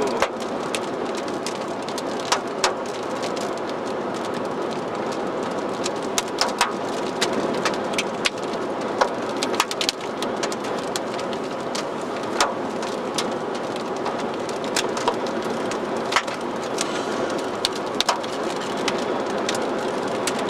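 Hailstones striking a moving car in sparse, irregular sharp ticks, one every second or so, over a steady rush of road and wind noise heard from inside the cabin.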